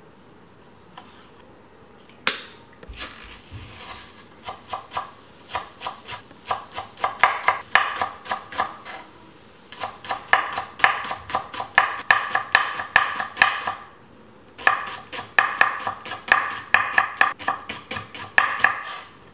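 Chef's knife rapidly chopping green onion on an end-grain wooden cutting board, about four or five knocks a second. The chopping starts about two seconds in and comes in three runs with two brief pauses.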